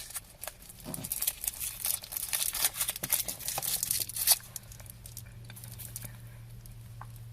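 Crinkly plastic wrapper of a Quality Street toffee finger being unwrapped by hand: rapid crackling and tearing for about four seconds. A low steady hum continues after it stops.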